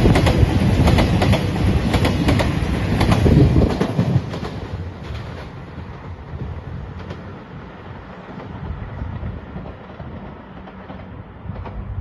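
JR Shikoku 2700 series diesel limited express train passing, its wheels clacking in quick succession over the rail joints. The clacking stops about four seconds in, leaving a fading rumble as the train moves away.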